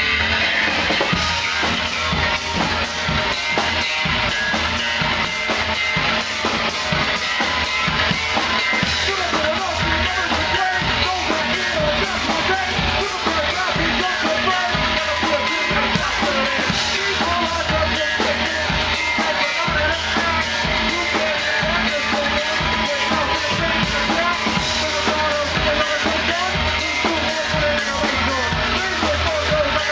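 Live rock band playing a song: drum kit, guitar and bass under singing.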